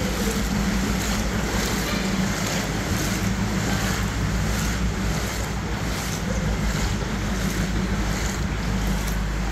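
Steady rushing noise of wind on the microphone over floodwater, with a low steady hum underneath.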